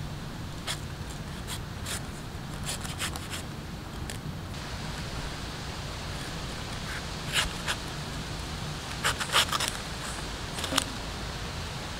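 A large curved knife scraping and slicing the fibrous skin off a palmyra fruit in short, irregular strokes, with the loudest cuts about seven and a half and nine and a half seconds in, over a steady low background hum.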